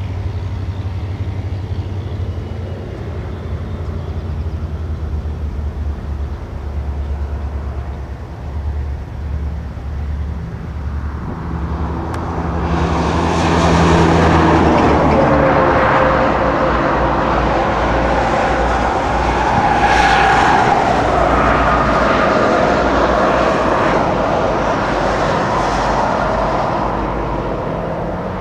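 CP SD40-type diesel locomotives running: a steady low engine drone that swells louder and brighter about twelve seconds in, with higher-pitched tones wavering over it as the units move along.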